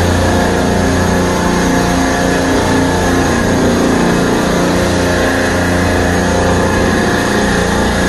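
Supermarket refrigeration compressor rack running: several compressors together making a loud, steady machinery hum with a constant low drone.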